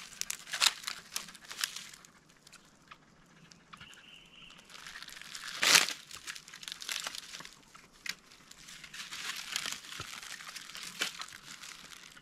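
Irregular dry crinkling and rustling, a run of crackles that thins out for a couple of seconds, with the loudest crackle about six seconds in.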